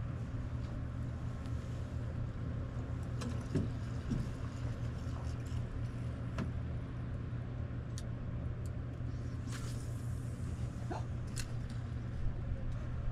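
A steady low machine drone, with a few light clicks and taps scattered through it.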